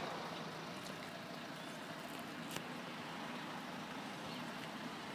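Steady outdoor background noise, even and without any distinct event, broken only by a faint click or two.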